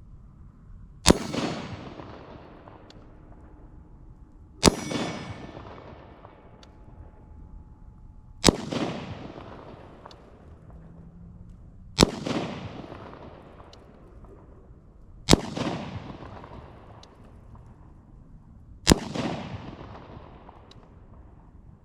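Six single gunshots, one about every three and a half seconds, each followed by a long echo that dies away over about a second and a half.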